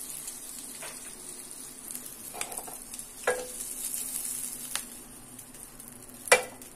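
Butter sizzling and foaming as it melts in a hot non-stick frying pan, a steady high hiss with a few small pops, and a sharper knock near the end.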